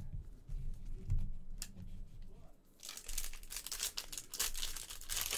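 Crinkling and tearing of a trading-card pack wrapper being handled and opened, starting about three seconds in; before that only faint handling sounds.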